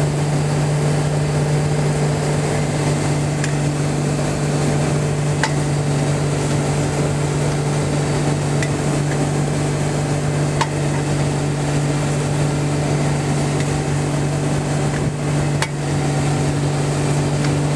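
Tow boat's engine running at a constant speed, an even drone, with the rush of water and wake around the hull. A few faint clicks are scattered through it.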